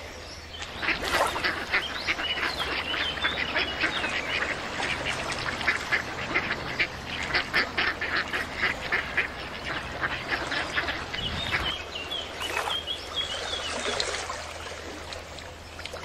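A flock of ducks quacking, many short calls overlapping in a rapid chatter that dies away near the end.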